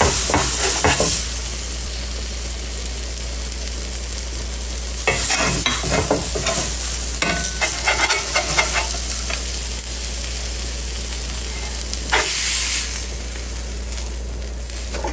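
Onion burger patties frying on a cast iron skillet, a steady sizzle, with a metal spatula scraping across the iron in three spells as the patties and caramelized onions are worked loose and lifted off.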